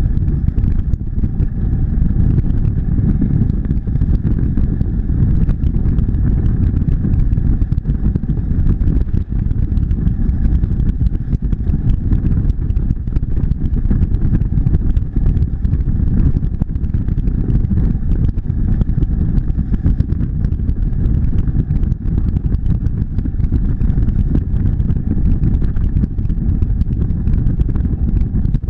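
Motorcycle cruising at highway speed: a steady, loud low rush of wind and road noise with the engine's drone underneath, holding an even pace throughout.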